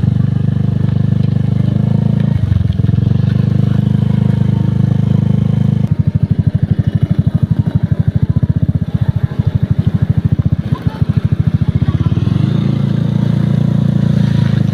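Bus telolet horn ('Kyloren' type) sounding a loud, low chord of several held notes, with a short break after about two seconds. From about six seconds it is played as a fast staccato run of pulses for several seconds, then it goes back to a long held chord.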